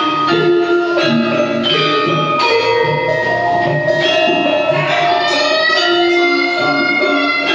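Javanese gamelan ensemble playing: bronze saron and demung metallophones struck with wooden mallets in a steady melody of ringing notes, with regular low strokes underneath.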